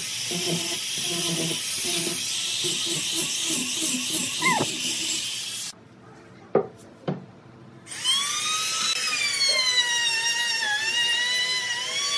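Angle grinder with a sanding disc running on wood, then spinning down about four and a half seconds in. After a short lull with two knocks, a handheld trim router starts about eight seconds in and runs with a high whine that wavers in pitch as it cuts along the wooden edge.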